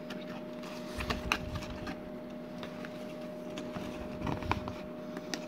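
Scattered light clicks and taps of hands handling a white cardboard product box and its inner flap, over a faint steady electrical hum.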